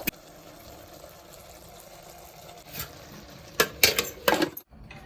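A steady background hiss with a sharp click at the start, then several loud sharp knocks and clatters in the second half, the loudest near the end, as of things being handled and set down.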